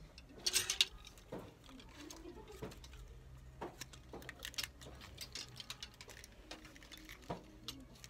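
Scattered soft clicks and rustles of handling as clothes on store racks are browsed through, over a faint low hum of the shop.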